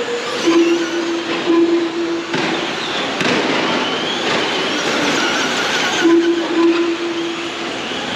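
Several electric off-road RC cars racing, their brushless motors whining and rising and falling in pitch as they speed up and slow down. A steadier, lower whine is heard in stretches.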